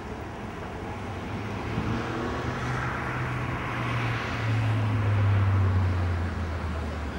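An engine passing by: a low hum and a hiss swell to their loudest about five seconds in, then the hum drops in pitch as it moves away.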